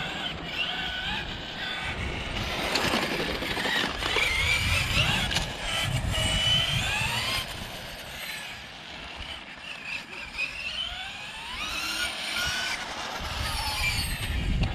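MCD XR5 RC car's SSS 230KV brushless electric motor on 20S whining, its pitch rising and falling repeatedly as the car speeds up and slows down. A low rumble runs underneath.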